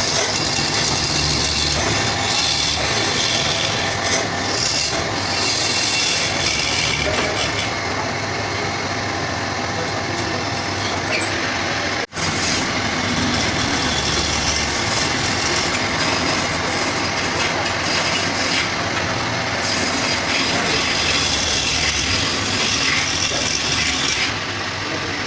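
Wood lathe running while a turning tool cuts the spinning wood, a steady hissing, scraping noise with a low rumble. It breaks off for an instant about halfway through and carries on.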